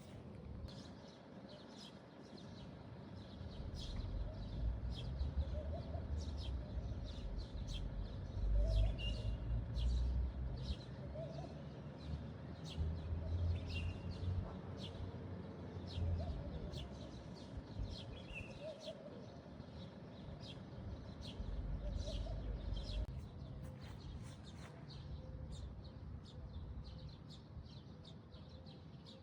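Small birds chirping over and over in quick, short high notes, over a low rumbling background.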